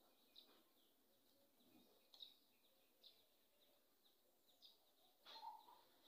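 Near silence with faint, short bird chirps about once a second, one a little louder about five seconds in.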